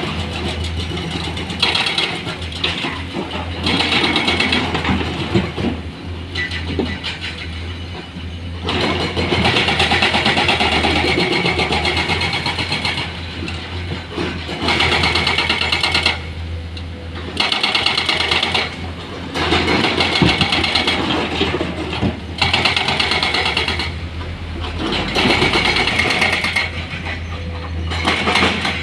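Heavy diesel machinery running steadily, with louder stretches of mechanical noise that come and go every few seconds.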